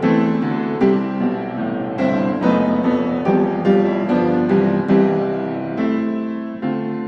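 Background piano music, with notes and chords struck about twice a second, each ringing and fading.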